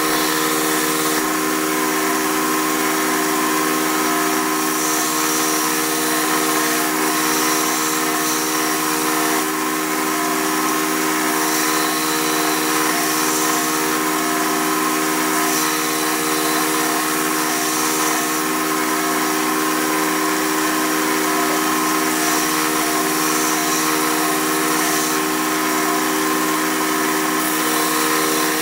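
Belt grinder running steadily, its motor giving a constant hum with several fixed tones. A steel knife blade is pressed against the abrasive belt in repeated passes, adding a high grinding hiss that comes and goes every few seconds.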